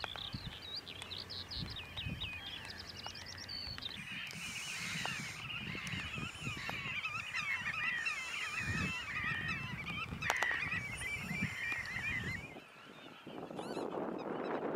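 A flock of geese calling together, a dense chorus of many overlapping honks, with higher bird calls and trills over it in the first few seconds. A little before the end it cuts to wind on the microphone.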